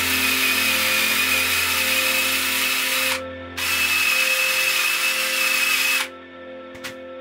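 Power-driven wire wheel brush scrubbing rust off a steel ratchet-wrench part, a steady hissing scrub with a high whine. It breaks off briefly about three seconds in, starts again, and stops about six seconds in.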